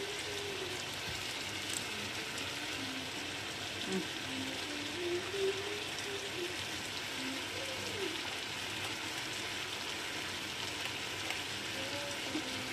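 Steady sizzling hiss of wet boiled peanuts in their shells drying in a hot stainless-steel pan.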